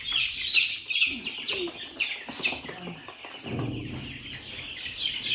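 A crowd of young chicks peeping together: a constant chorus of short, high, falling peeps. A soft low rustle comes a little past halfway.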